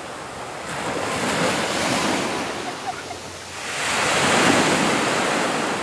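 Sea surf breaking and washing up the shore, a steady rush that swells twice, most strongly with a larger wave about four seconds in.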